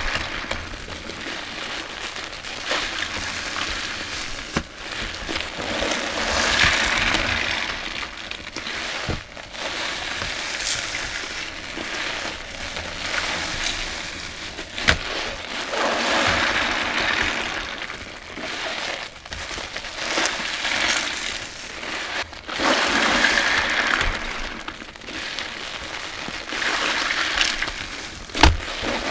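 Sponges full of thick shampoo suds squeezed by hand in soapy water: wet squelching and fizzing of lather, rising in swells every several seconds as each squeeze is made, with scattered clicks and one sharp click near the end.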